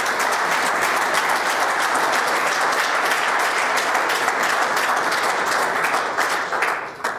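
Audience applauding steadily, a dense patter of many hands clapping, dying away with a few last claps near the end.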